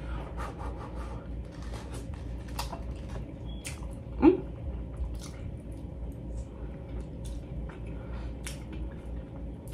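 Close-up wet eating sounds of a mouthful of pounded yam with egusi soup being chewed: soft squishes and many small sharp mouth clicks and smacks. About four seconds in there is one short rising vocal 'mm'.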